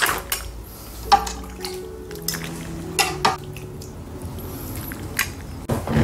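A metal ladle clinking and knocking against an enamel pot and a plastic bowl, with clam shells clattering, as clam noodle soup is served out; a handful of separate clinks.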